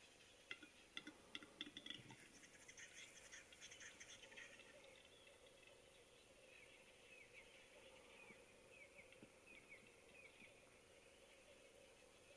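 Male western capercaillie's lek display song, faint: a run of dry clicks in the first two seconds that quickens into a scratchy rattle for a couple of seconds more. Later comes a series of short falling chirps, about three a second.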